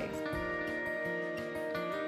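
Background music: soft guitar-led instrumental with steady plucked notes.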